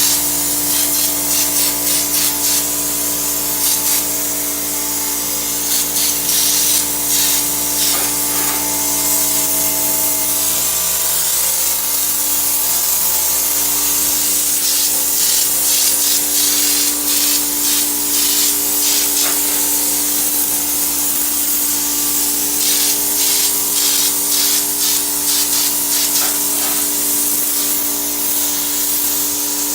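Popcorn ceiling texture being sprayed: a steady motor hum from the texture sprayer's machine under repeated bursts of hissing air and spray as the gun is worked.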